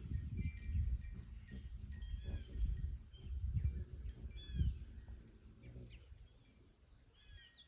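Songbirds chirping and calling in many short, quick notes, over a steady high-pitched drone and a low rumble on the microphone that is strongest in the first few seconds.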